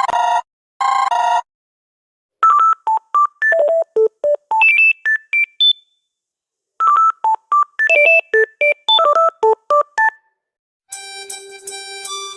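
Smartphone ringtones playing one after another: two short rings end in the first second and a half, then a quick electronic melody of short bright notes leaping between high and low plays twice. About eleven seconds in, another ringtone starts, a fuller tune with a held low note underneath.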